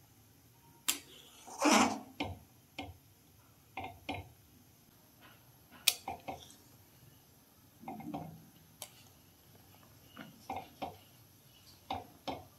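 Metal spatula knocking and scraping against a metal pan of simmering milk while stirring, in a dozen or so irregular clinks and short scrapes.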